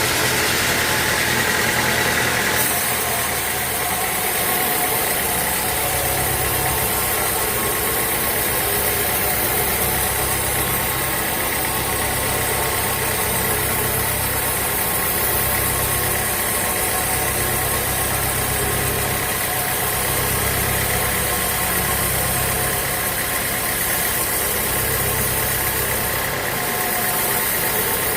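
Sawmill machinery running with a steady, constant hum; the sound changes abruptly about two and a half seconds in.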